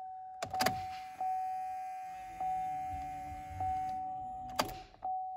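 2012 Chevrolet Cruze's dashboard warning chime repeating about once every second and a bit, with sharp clicks about half a second in and again near the end as the ignition key is cycled off and on to prime the fuel system.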